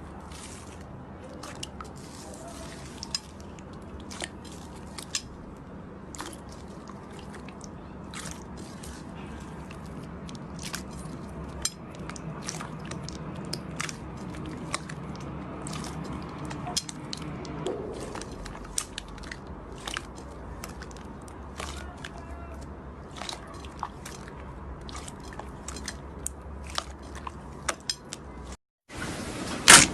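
Slime being squeezed and pressed by hand, giving many small, sharp crackles and pops over a steady soft background.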